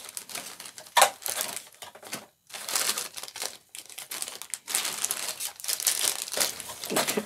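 Packaging crinkling and rustling in irregular bursts as hands rummage through a parcel of wax melts, with one sharp crackle about a second in.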